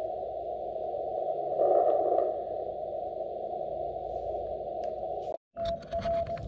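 Xiegu G90 HF transceiver's receiver hiss from its speaker, squeezed into a narrow low band by the receive filter as the operator tunes across the band. The hiss swells briefly about two seconds in. Near the end the sound cuts out for an instant, then a Morse code signal beeps on one steady pitch.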